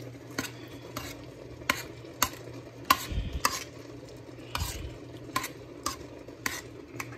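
A metal spoon stirs a thin sauce in an aluminium wok, knocking and scraping against the pan with irregular sharp clicks about once or twice a second. A steady low hum runs underneath.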